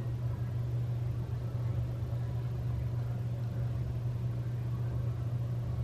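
A steady low hum, unchanging in pitch and level, with a faint hiss above it.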